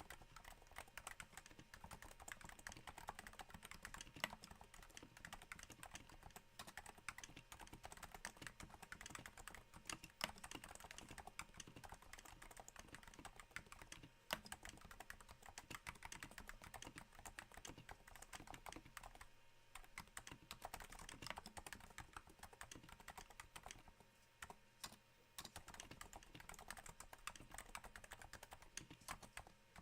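Quiet, steady typing on a Cooler Master NovaTouch keyboard with Topre switches silenced by Hypersphere rings: a dense, soft, rain-like patter of key strokes, with a couple of brief pauses past the middle.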